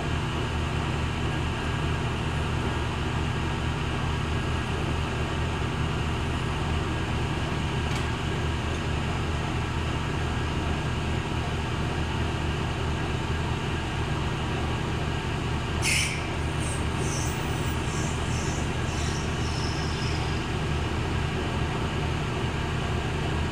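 Hardinge HC chucker turret lathe running with a steady, even hum. A faint click comes about eight seconds in, and a brief sharp high-pitched sound about sixteen seconds in.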